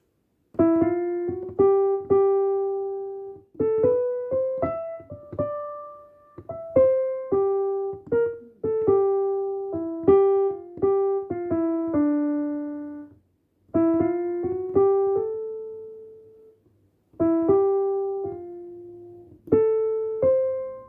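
Old Yamaha electronic keyboard with a piano voice playing a simple single-note right-hand melody, one note at a time, in short phrases separated by pauses. It is a beginner's practice run with some slips in the beat.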